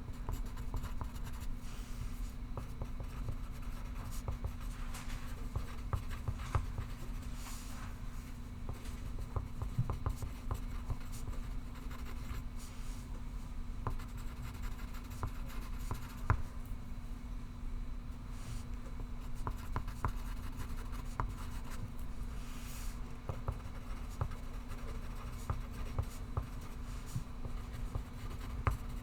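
Pencil writing on paper: irregular scratching strokes and light taps, going on continuously, over a steady low hum.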